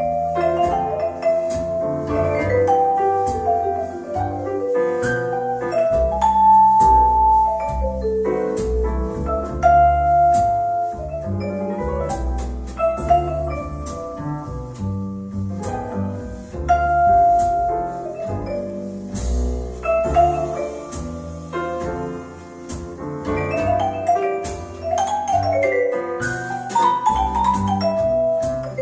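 Instrumental music with a mallet-percussion melody and deep bass, played through Magnat Zero 3 car audio speakers in a sound test.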